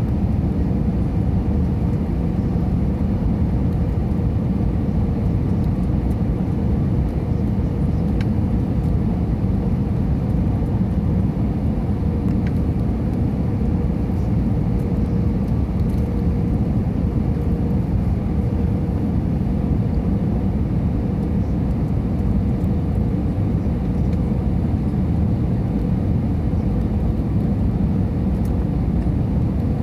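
Steady low rumble of an airliner's engines and rushing air heard inside the passenger cabin on the approach to landing, with a faint steady hum above it.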